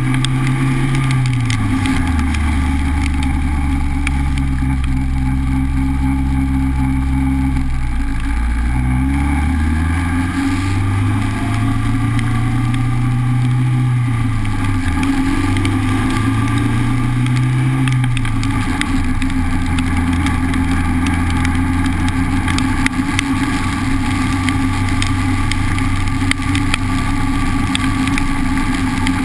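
Honda Civic's engine running while driving, its pitch falling, dipping about eight seconds in, rising again and settling steady after about eighteen seconds as the car changes speed and gear, over a constant hiss of road and wind noise.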